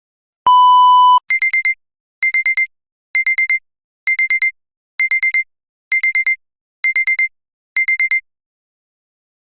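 Electronic alarm beeping: one steady tone lasting under a second, then eight bursts of four quick, higher-pitched beeps, about one burst a second, stopping abruptly.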